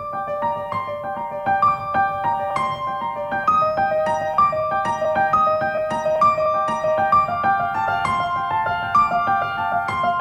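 Piano music: a flowing run of notes in the upper-middle register, several a second.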